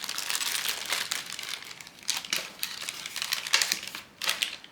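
Plastic accessory packaging crinkling as it is handled: a continuous rustle for about two seconds, then a few separate crackles.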